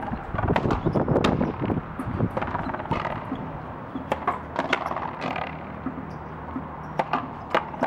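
Frontón racket rally: a rubber ball struck by strung rackets and smacking off the wall, about eight sharp hits at irregular gaps of roughly a second.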